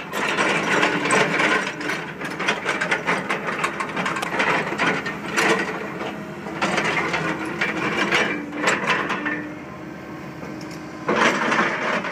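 Cat 315D excavator's ripper tooth grinding and cracking through hard rock: a dense run of scraping, crackling clicks over the steady hum of the machine's diesel engine and hydraulics. The scraping eases off briefly near the end, then picks up again.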